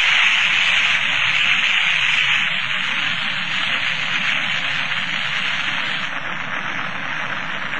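Rocket engine roar at liftoff: a hissing rush with a low rumble beneath, cutting in suddenly and slowly fading as the rocket climbs away.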